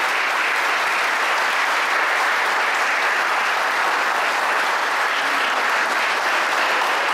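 Audience applauding steadily, a dense, even clapping that holds without a break.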